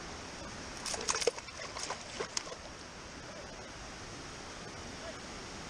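Steady rushing of river water, with a quick cluster of wet slaps and knocks about a second in as a hooked fish flaps against the wet stone bank and the water's edge.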